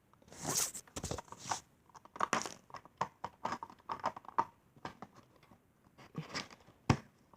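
Plastic Lego pieces being handled as a roof is fitted back onto a Lego locomotive: irregular clicks, light rattles and rustling, with a sharper knock near the end.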